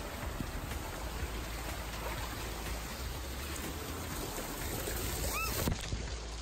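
Water rushing and splashing down a water slide's flume, heard from a rider sliding down it, with a short high squeak about five seconds in.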